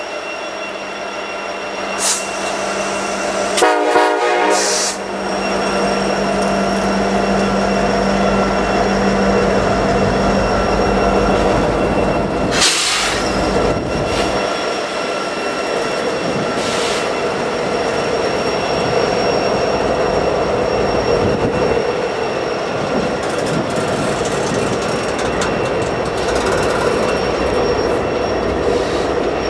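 Freight train with two diesel locomotives, an EMD SD70M-2 and a GE C40-8M, passing slowly at close range, with a steady rumble of wheels on rail and a continuous high wheel squeal. There is a short loud rattle about four seconds in and a louder clank about thirteen seconds in.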